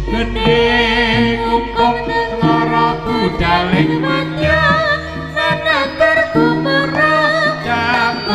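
Javanese jaranan ensemble music: a high melody line that wavers in pitch over drums and held low notes.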